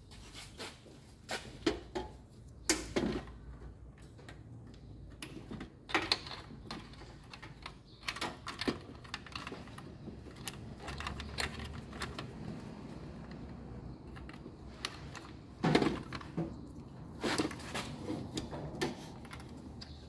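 Irregular plastic clicks and knocks of wiring-harness connectors being pushed into a washing machine's main control board and the plastic control panel being handled.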